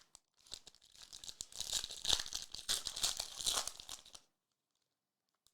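A foil trading-card pack crinkling and tearing as it is ripped open: a dense crackle for about three and a half seconds that stops suddenly.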